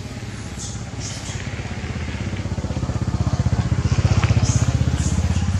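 A small engine running steadily with a rapid even pulse. It grows louder over the first four seconds and then eases slightly.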